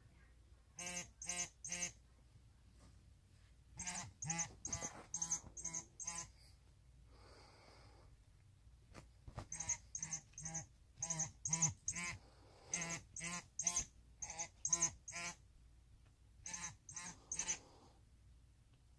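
Battery-powered Jitter Mouse cat toy squeaking in runs of short, rapid, identical chirps, about three a second, set off again and again as the cat plays with it. The runs come in groups of three to a dozen or so with pauses between.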